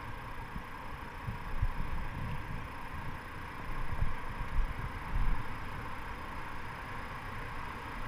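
Wind buffeting the microphone of a camera on a raft being rowed down a river: uneven low rumbling gusts, a little stronger a couple of times near the middle, over a steady faint hiss.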